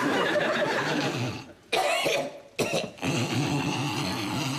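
A person's harsh, hacking coughing and throat clearing in three fits, with short pauses about one and a half and two and a half seconds in.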